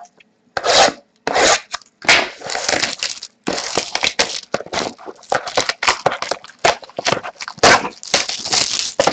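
Trading-card box being opened by hand and the pack worked out of it: a quick run of rubbing and scraping strokes of cardboard and wrapping.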